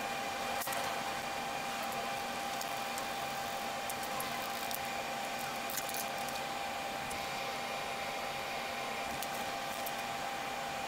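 A steady whirring hum, like a fan or blower running, with a few faint clicks and taps from tools being handled.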